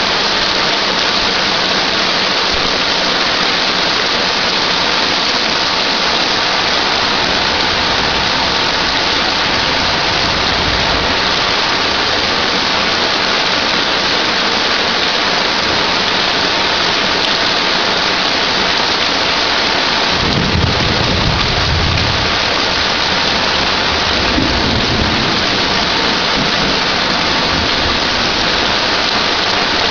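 Heavy thunderstorm rain pouring down, a dense steady hiss. A low rumble of thunder comes in about twenty seconds in, with a shorter one a few seconds later.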